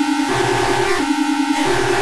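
A two-tone hi-lo ambulance siren, electronically distorted into a harsh, noisy version. It switches between its two notes about every 0.7 s over a low bass rumble.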